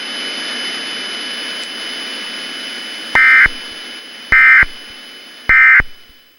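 Steady radio-style static hiss, then three short bursts of warbling EAS digital data tones about a second apart: the End of Message (EOM) signal that closes the alert. The hiss fades out near the end.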